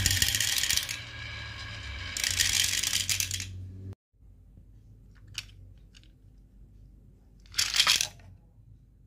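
Small balls rattling down a grooved wooden track and clattering into a plastic toy dump truck's bed: two bursts of clattering in the first half, then after a sudden cut a single click and a short clatter near the end.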